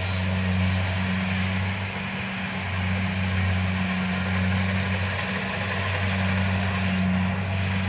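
Kubota DC-70 combine harvester's diesel engine running steadily under working load, a constant low drone mixed with the clatter of the threshing machinery.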